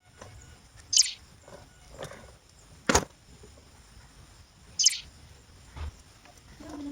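Small parts being handled: a few separate clicks and knocks, with sharp high clicks about one second and five seconds in and a louder knock about three seconds in.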